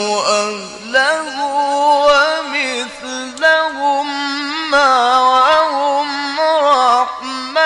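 A male Quran reciter's voice drawn out in long, ornamented melismatic phrases in the mujawwad chanting style, its pitch wavering and turning, with brief breaths between phrases.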